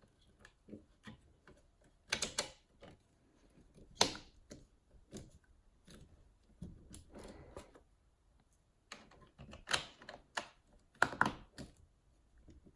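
Irregular hard plastic clicks and knocks as diffuser pieces are handled and pressed into a 3D-printed LED frame, with a few louder sharp snaps among softer rattles.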